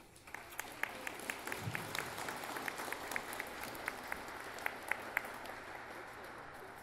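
Audience applauding, with a few sharp claps close by standing out above the rest; the applause tapers off near the end.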